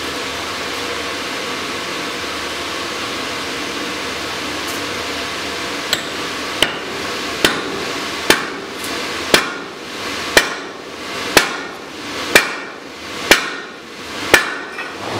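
Sledgehammer blows on a hot-steel drift, driving it through a glowing block to open the hardy hole of a striking anvil. About ten ringing strikes come roughly a second apart, starting about six seconds in, after a steady rushing noise.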